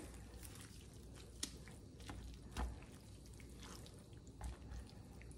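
Spatula mixing baked pasta, chicken and broccoli in a creamy sauce in a baking dish: faint wet squishing with scattered light clicks and taps of the spatula against the dish, and a couple of soft thumps.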